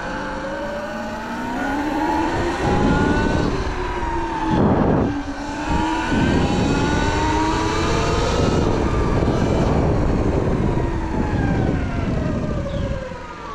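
Sur-Ron electric dirt bike riding: the motor and belt drive whine, rising and falling in pitch with the throttle, over wind and tyre noise with a gust about four and a half seconds in. The rider finds the belt louder than normal and suspects dirt or water buildup, which he does not take for anything major.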